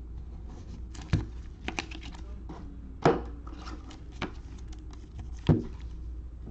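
Trading cards and a rigid plastic top loader handled with gloved hands: a run of small clicks and rustles, with three louder knocks about a second, three seconds and five and a half seconds in.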